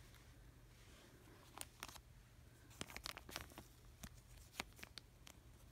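Near silence, broken by faint, scattered clicks and light rustling as small items are handled.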